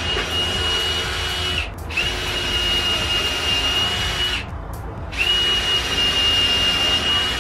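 Electric drill running in three trigger pulls of about two and a half seconds each, with short breaks between them; each run has a steady high whine.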